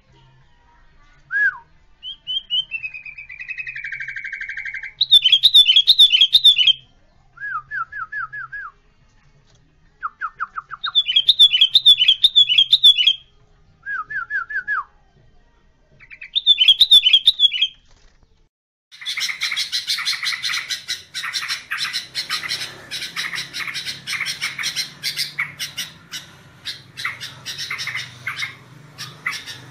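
Yellow-vented bulbul (trucukan) singing: short phrases of whistled, dropping notes and quick trills with pauses between them, then from about two-thirds of the way in a dense, continuous chattering.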